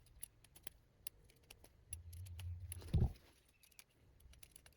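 Faint, irregular small clicks and ticks of a screwdriver working small screws in an FPV quadcopter's frame, with a short low thump about three seconds in.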